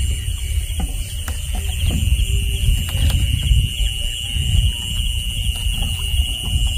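Steady high-pitched trilling of night insects, unbroken throughout, over a low rumble with a few short knocks.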